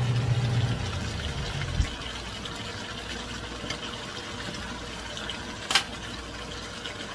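Chicken adobo simmering in its sauce in a frying pan, a steady crackle of bubbling and sizzling. A low hum stops abruptly about two seconds in, and a single sharp click comes near the end.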